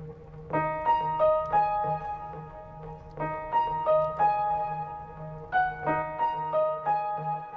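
Background music: a gentle piano melody over a soft, steady low pad, the piano notes coming in about half a second in and repeating in short phrases.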